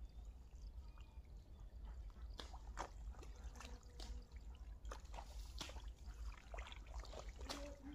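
Hands squelching and splashing in wet mud and shallow muddy water, with irregular short wet splats, over a low steady rumble.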